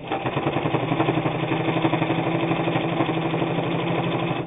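New Home Type H friction-drive sewing machine running at full speed while stitching through thick heavy denim: a loud, rapid, even clatter of needle strokes over the motor's hum. It starts suddenly and cuts off near the end.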